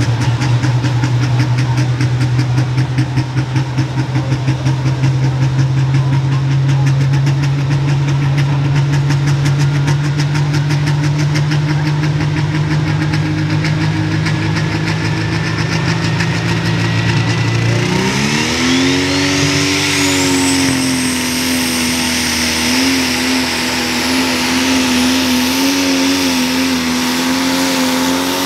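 Turbocharged diesel engine of a Pro Stock pulling tractor holding steady revs at the line, with a turbo whine slowly climbing. About 18 seconds in, the engine revs up sharply as the tractor launches into the pull. It then holds at high revs under load, with the turbo whining high.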